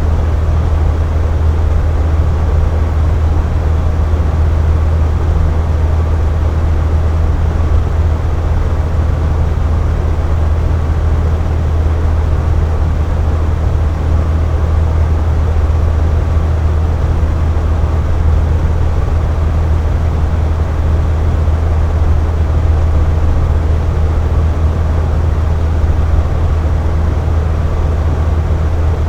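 Air conditioner running steadily: a constant low hum with an even rushing hiss of air above it, unchanging throughout.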